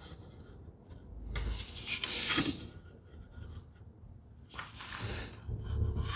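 Two long scraping, rubbing strokes on wood during hand work on a tenon, about a second in and again near the end, with light knocks between.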